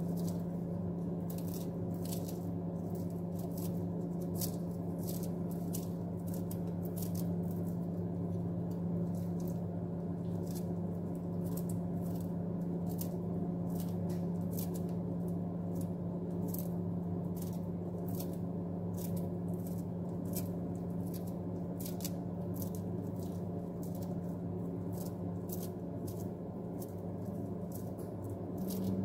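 Kitchen scissors snipping fresh parsley into a bowl: a long run of small, crisp snips at about two a second. A steady low electrical hum runs under it.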